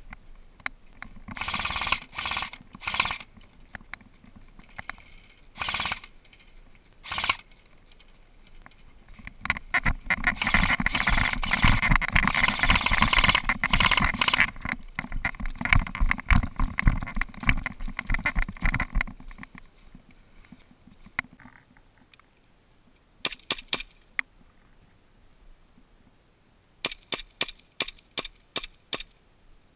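Airsoft gunfire in short bursts and single shots, with a long stretch of fast, dense noise in the middle. Near the end comes a quick string of about seven shots from an airsoft pistol.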